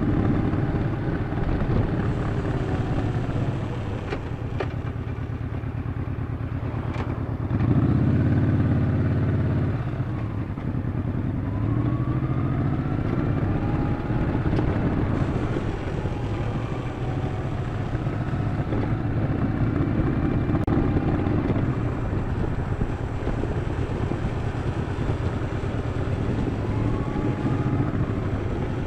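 Yamaha XV950 (Bolt) air-cooled V-twin engine running under way, its pitch rising and falling with the throttle. It is briefly louder about eight seconds in, when the rider opens the throttle.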